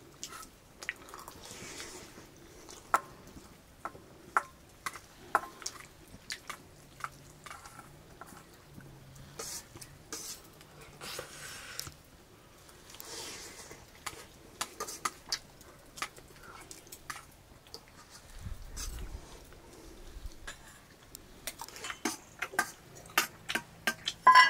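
Eating sounds: chewing and mouth smacks with scattered light clicks. Near the end, a quick run of metal clinks from a spoon on a steel plate and steel pots.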